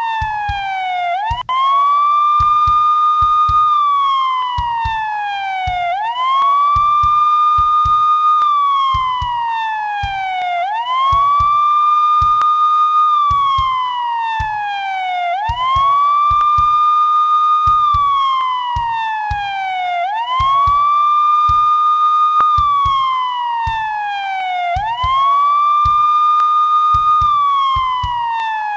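Police siren in wail mode: each cycle rises quickly, holds a high pitch for about two seconds, then falls slowly, repeating about every five seconds.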